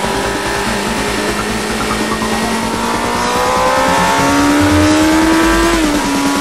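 Suzuki GSX-R600 inline-four engine pulling under acceleration, its pitch rising steadily for about three seconds, then dropping suddenly near the end at an upshift, over a steady rush of wind on the microphone.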